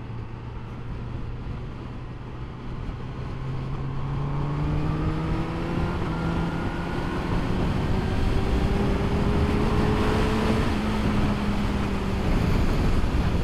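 Honda CBR1000RR Fireblade SP2's inline-four engine pulling steadily on the road. It holds a steady note for the first few seconds, then rises slowly in pitch as the bike accelerates, levelling off near the end. Wind rush over the rider's helmet grows louder with the speed.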